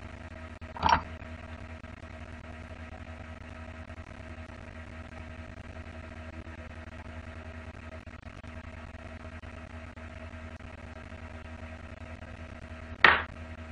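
A steady low hum with a few steady tones in it, broken by two short, loud noises, one about a second in and one near the end.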